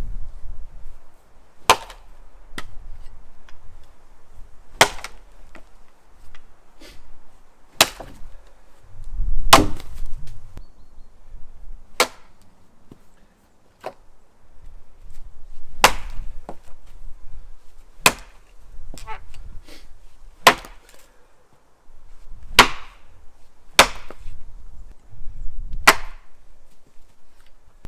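Axe chopping wood: about a dozen sharp blows into a log, spaced irregularly a couple of seconds apart.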